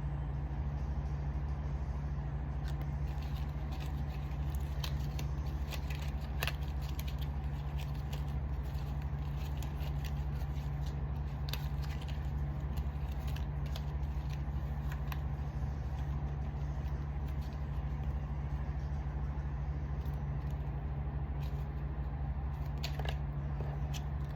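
Steady low engine hum of a vehicle, with scattered faint clicks and rustles of handling.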